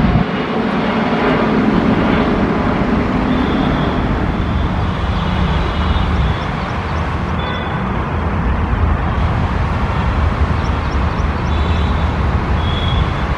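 Steady rumble of a Boeing 787's jet engines as the airliner climbs out after takeoff.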